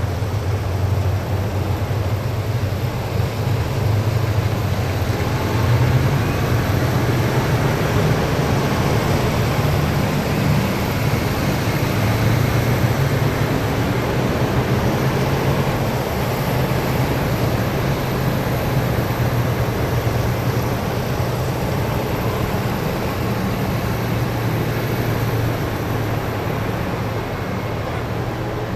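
Column of heavy military vehicles driving past, their engines a steady low drone over road noise, swelling a little in the first half and easing slightly near the end.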